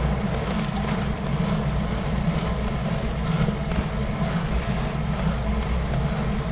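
Wind rushing over the microphone of an action camera mounted on a moving road bike: a steady low rumble, with a fainter hiss of tyres on asphalt.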